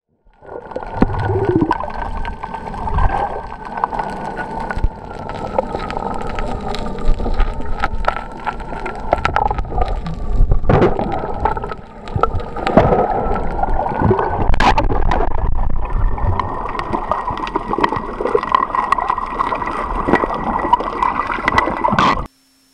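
Underwater recording: air bubbles gurgling and crackling with many sharp clicks over a low rumble, and a steady high whine that wavers slowly in pitch; it cuts off suddenly near the end.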